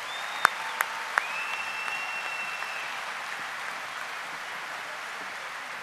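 Large crowd applauding steadily, with a few sharp claps standing out in the first second or so and a long, shrill whistle from the crowd.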